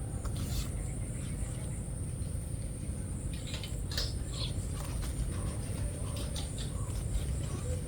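Rural outdoor ambience: a steady high insect drone over a low rumble, with a few brief chirps and small rustles scattered through.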